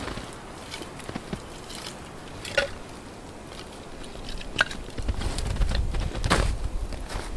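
Boots crunching in snow and pieces of split wood knocking together as kindling is picked up: scattered crunches and clicks, heavier and closer for the last couple of seconds.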